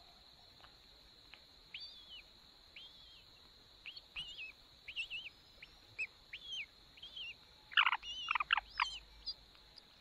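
Cuckoo chick begging in the nest: a series of short, down-slurred chirps, one or two a second, with a louder, quicker run near the end. A steady high hum runs underneath.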